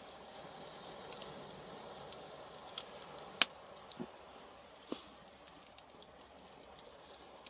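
Barbecue fire crackling faintly over a steady low hiss, with a few scattered sharp pops, the loudest about three and a half seconds in.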